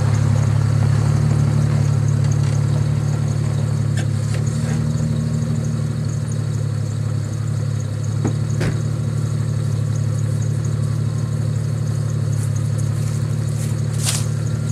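Jeep Grand Cherokee 4.0-litre straight-six idling steadily through a 'fart can' aftermarket exhaust tip, a low, even exhaust note, with a few faint clicks.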